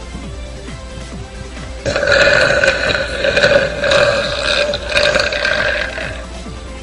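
A girl's long, drawn-out burp, starting about two seconds in and held at a steady pitch for around four seconds, over background music.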